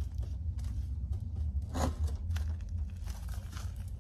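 Brief scrapes and rustles of hands working the plastic rain barrel and its lid, over a steady low rumble.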